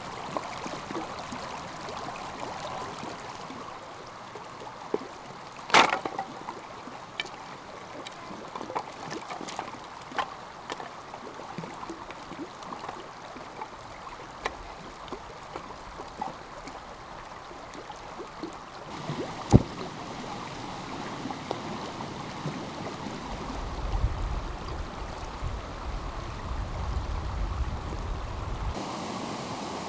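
Stream running steadily, with scattered small clicks and knocks over it, including one sharp knock about six seconds in and another about two-thirds of the way through. A low rumble joins for several seconds near the end.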